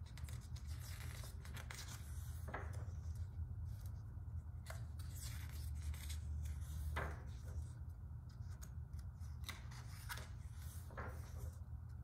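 Pages of a large art book being turned by hand: paper swishing, crackling and rubbing as pages are lifted, turned and smoothed flat, at irregular moments. A steady low hum runs underneath.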